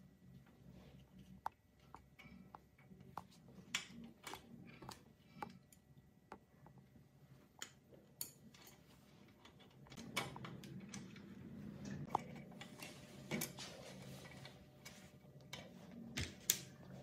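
Irregular small metal clicks and taps from handling the carburetor linkage rod and spring on a small four-stroke engine, with a busier stretch of handling noise partway through, over a steady low hum.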